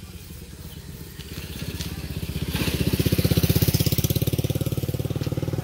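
A small engine running close by, its fast even pulsing growing louder from about two and a half seconds in.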